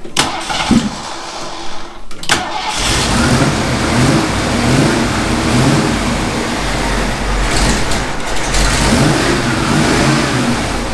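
A few knocks, then about three seconds in a car engine starts and runs, its revs rising and falling.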